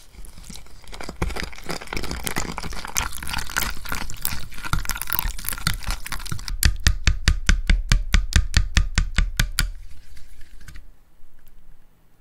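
Water poured into flour in a glass dish while a whisk mixes it into batter, a wet stirring sound full of small clicks. About six and a half seconds in the whisking turns to fast, even strokes, about eight a second, which fade out near the end.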